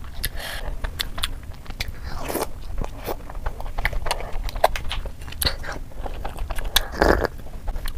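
Close-up wet chewing of soft, milk-soaked rasmalai, with many small mouth clicks and a couple of longer smacking, squelching sounds.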